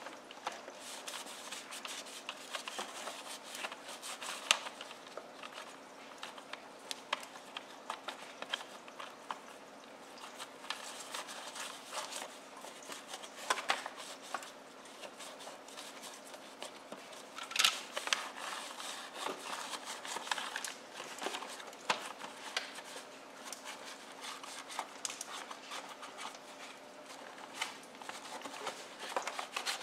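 A cloth wiping and rubbing over a hard plastic toy truck, with irregular light clicks and knocks as the toy is handled and shifted about.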